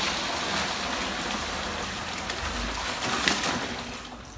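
Water pouring steadily from a tilted clear plastic tub into a styrofoam cooler, a continuous splashing rush that fades off near the end.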